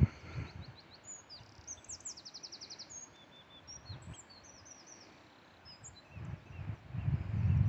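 Small birds chirping, with a rapid high trill about two seconds in and scattered calls throughout. A low rumbling noise sits under it at the start and returns louder near the end.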